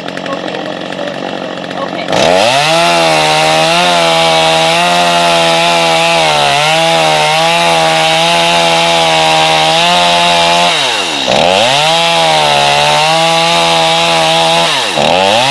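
Chainsaw engine opening up to full throttle about two seconds in and holding a steady high-pitched run. Twice near the end the revs drop and come straight back up.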